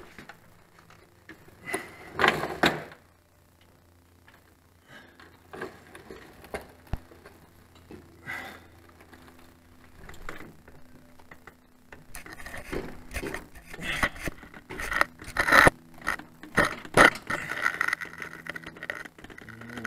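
Metal clinks, knocks and scrapes of hands and tools working a backhoe's hydraulic pump and its fittings, in irregular bursts. There is a loud cluster about two seconds in, and the clinks come thick and fast over the last several seconds.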